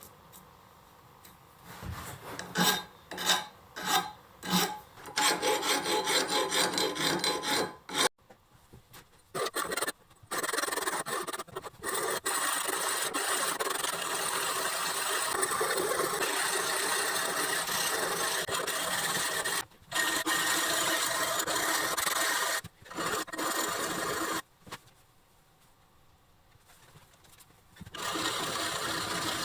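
Rough scraping and rasping on the steel of an old hand-forged axe head, from rust removal or sharpening. It begins as about half a dozen separate strokes, then runs as long continuous stretches of scraping, stopping briefly a few times and pausing for a few seconds near the end.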